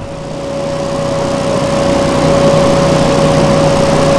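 Coach bus engine idling: a steady hum with a high whine over a lower drone, growing louder over the first two seconds and then holding even.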